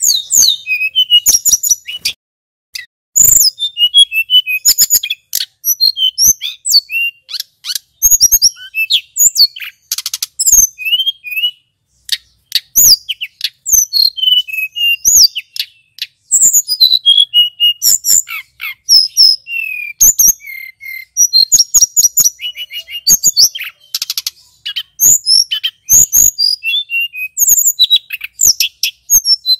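Male tledekan gunung, a Cyornis blue flycatcher, singing in full song: a long run of high, rapid chirping phrases and rolling trills, broken by short pauses.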